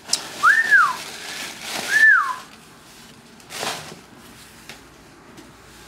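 A person whistling two short notes, each sliding up and then back down in pitch, about a second and a half apart, followed by a brief noise about three and a half seconds in.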